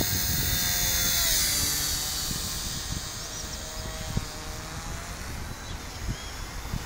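Micro RC helicopter's electric motors and rotor blades whining at a high pitch under a hard throttle punch. The whine rises and is loudest in the first two seconds, then drops off, over low wind rumble on the microphone.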